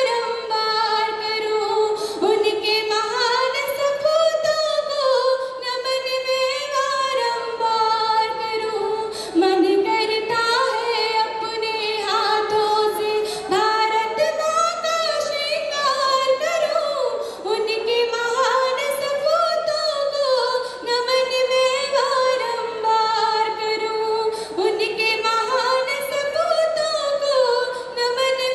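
A woman singing solo into a microphone, with long held notes and ornamented turns in the melody and no instrumental accompaniment.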